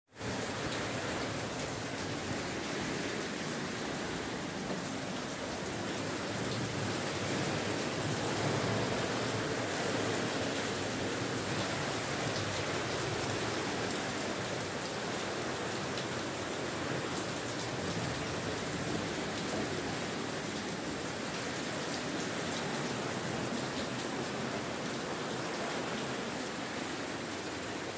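Heavy rain pouring down, heard from inside the house as a steady, even rush that swells slightly about a third of the way through.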